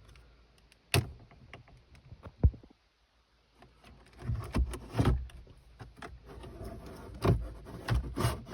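Fiat Panda radio head unit being worked out of the dashboard with metal removal keys: sharp plastic-and-metal clicks, then a run of knocks, rattles and scraping as the unit slides out of its slot.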